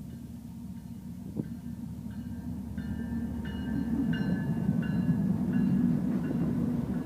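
CN Rail train approaching, its low rumble growing steadily louder. Short high-pitched squeals break in and out from about a second and a half in.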